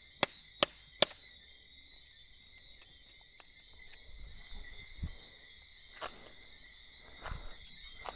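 Knife chopping on a cutting board: three sharp chops in quick, even succession in the first second, then a few softer knocks. A steady, high-pitched insect chorus runs underneath.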